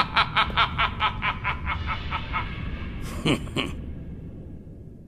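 A man's low gloating laughter: rapid, evenly spaced chuckles about five a second that gradually trail off and fade away, with one sharper breathy laugh about three seconds in.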